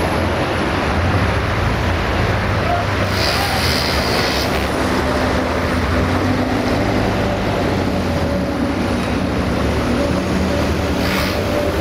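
Mobile crane's diesel engine running steadily as it lowers a tram onto the rails, with a short hiss about three seconds in and another near the end.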